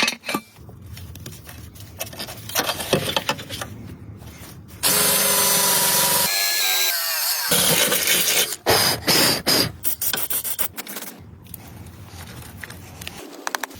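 Tools at work on a car: scattered clicks, knocks and rubbing, with a power tool running loudly for about three seconds in the middle, some of its pitch falling near the end.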